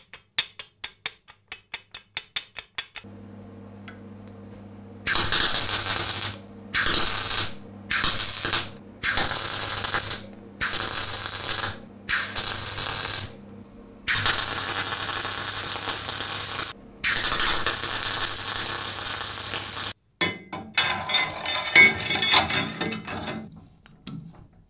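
MIG welder arcing on steel tube in a series of short bursts of about a second each, then two longer runs of several seconds, with the welder's hum between them. A fast run of clicks comes at the start, and scattered metal clatter near the end as a lathe chuck is worked with its key.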